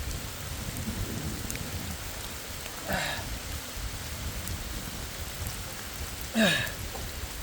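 Heavy rain falling steadily, with a low wind rumble on the microphone. There are two brief swishing splashes, about three seconds in and again at about six and a half seconds, as a hand tool works debris loose in the clogged pond drain pipe.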